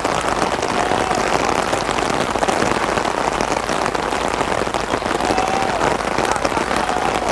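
Torrential rain from a thunder shower pouring down in a steady, dense patter of drops.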